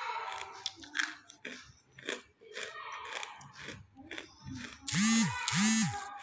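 Crisp crunching and chewing of half-roasted clay being bitten. Near the end come two loud, short tones, each rising and then falling in pitch.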